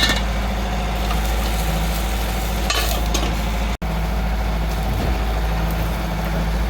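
Food sizzling and being stirred in a frying pan, over a steady low engine drone. The sound cuts out for an instant a little under four seconds in.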